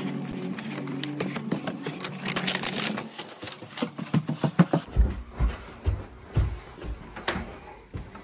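Footsteps and a rustling paper delivery bag. After a steady low hum in the first three seconds, dull footfalls come roughly twice a second on carpeted stairs, from about halfway in.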